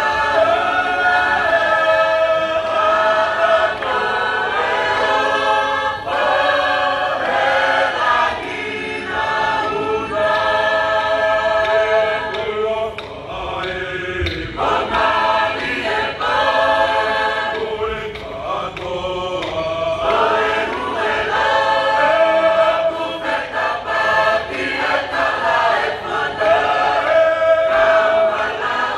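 Choir singing a Tongan lakalaka song, many voices together holding long notes in phrases, with short breaks between phrases.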